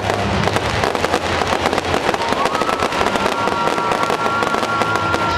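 Fireworks crackling and popping in rapid, dense succession, with a held musical note joining in about two seconds in.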